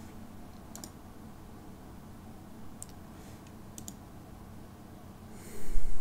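A few short, faint clicks at a computer desk over a low steady hum, then near the end a louder burst of breathy noise.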